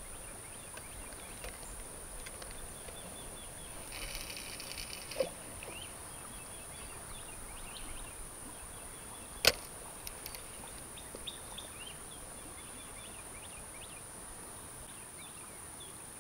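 Quiet riverbank ambience: scattered bird chirps over a steady high hiss, with a brief buzzy sound about four seconds in and a single sharp click about nine and a half seconds in.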